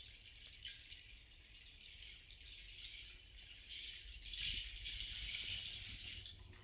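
Healing rattle shaken softly, a steady hiss of small beads that swells louder about four seconds in and then stops.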